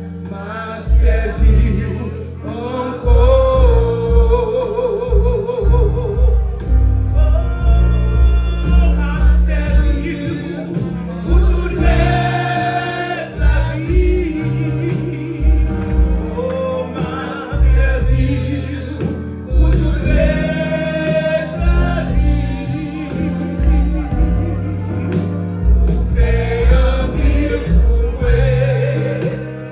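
Gospel song: voices singing with vibrato over a band with a heavy, pulsing bass line.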